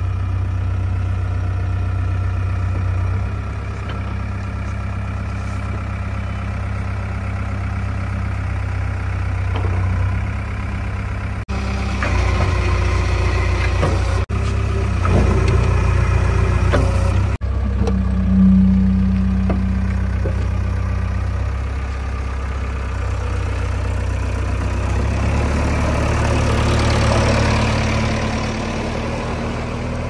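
JCB 3DX backhoe loader's four-cylinder diesel engine running, its pitch and loudness shifting several times as the machine works.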